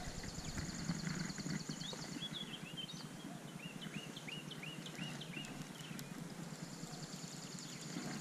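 Songbirds singing: a fast, dry trill at the start and again near the end, with a run of short rising chirps between, over a faint steady background hum.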